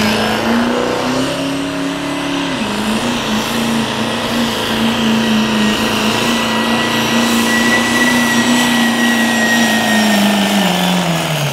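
Turbo-diesel pickup truck at full throttle pulling a weight-transfer sled, the engine running loud and steady at high revs with a high whistle over it. Its note climbs at first, dips once about two and a half seconds in, then holds until it falls away near the end as the throttle comes off.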